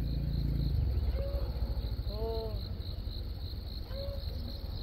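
An insect, cricket-like, trills steadily in evenly spaced high pulses, about four a second, over a strong low rumble. A few short, arched calls sound now and then, the clearest about two seconds in.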